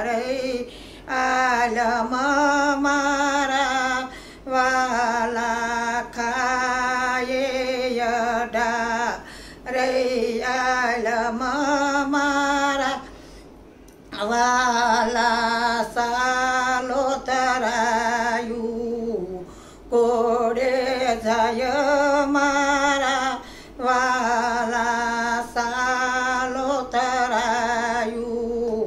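A woman singing a Gujarati devotional kirtan, solo voice in long wavering phrases of a few seconds each, with short breaks between them and a longer one midway.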